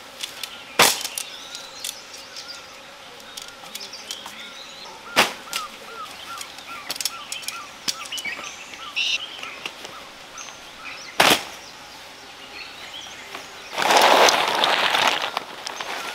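Tent-pitching handling sounds: three sharp knocks spread a few seconds apart and a loud rustle near the end. A bird chirps a quick run of short calls in the middle.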